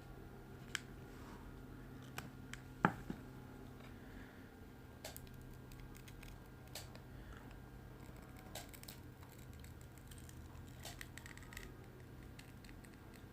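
Small repair tools clicking and tapping against a phone's frame and glass while its screen is prised open, a dozen scattered sharp clicks with the loudest about three seconds in, over a steady low hum.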